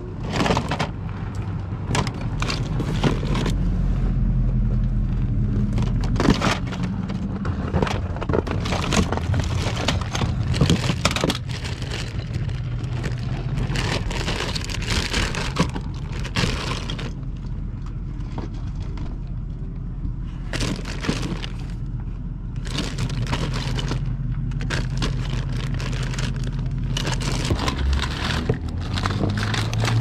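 A car running with steady low engine and road rumble, overlaid with frequent clicks and rattles.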